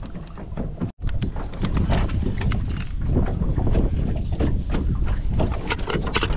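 Wind buffeting the microphone on a small boat on open water, with scattered knocks and handling noise. The sound cuts out for an instant about a second in.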